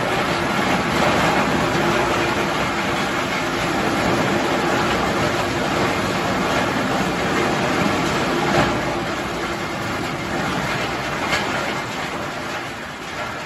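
Integrated drum wood chipper running with a loud, steady mechanical rumble and rattle, with sharp cracks about eight and a half seconds in and again near eleven seconds. It grows quieter over the last couple of seconds.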